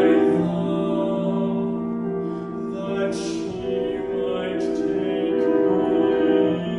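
Baritone singing a classical art song in a sustained, legato line with piano accompaniment, with a brief sibilant consonant about three seconds in.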